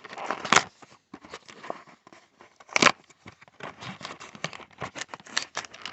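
Wrapper of a baseball card pack being torn open and crinkled by hand: irregular crackling, with two louder tears about half a second and about three seconds in.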